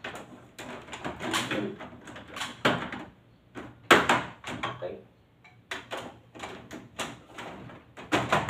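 Plastic clicks, snaps and scraping as air filters are slid and seated back into a Carrier wall-mounted split air conditioner's indoor unit, with a string of sharp snaps in the second half and the loudest about four seconds in.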